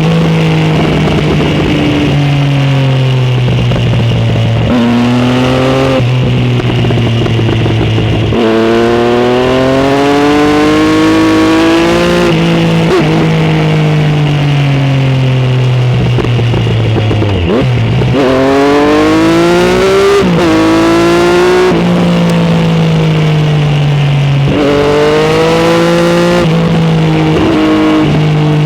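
Motorcycle exhaust heard from a mic under the seat while riding. The engine note repeatedly climbs in pitch under acceleration, then drops at each gear change, with wind and road noise underneath.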